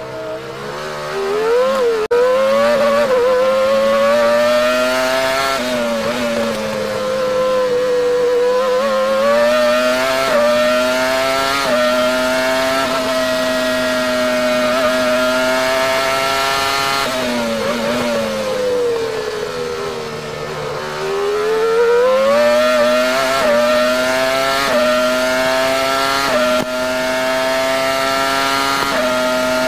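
Minardi Formula One car's V10 engine heard onboard at racing speed, its pitch climbing through the gears in quick upshifts. It falls twice as the driver brakes and downshifts for corners, once near the start and once around two-thirds of the way in, then holds high and steady near the end.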